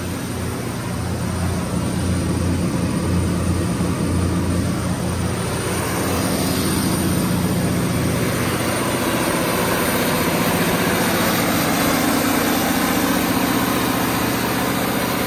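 Cummins KTA50-G3 V16 turbocharged diesel engine of a 1250 kW generator set running steadily, a deep even drone with its engine-driven radiator fan. It grows louder and fuller about halfway through.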